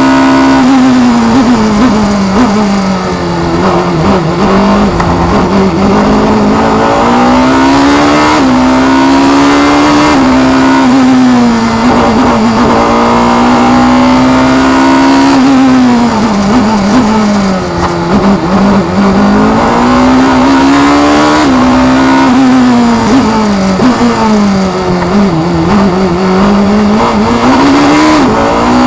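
Onboard sound of a 2.0-litre Vauxhall XE four-cylinder racing engine in a Dallara single-seater, run hard near 8,000 rpm. The note climbs through the gears with sudden drops at the upshifts, around 8 and 10 seconds in, and sags and climbs again several times as the car slows for corners and accelerates out.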